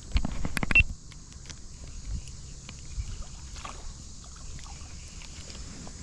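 Water splashing and handling knocks while a hooked fish is reeled in, loudest in a quick run of knocks and splashes in the first second, then lighter scattered splashes and clicks.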